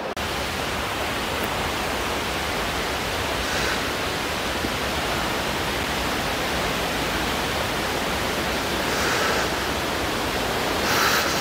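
Steady rush of running water: an even, pitchless noise that holds at one level.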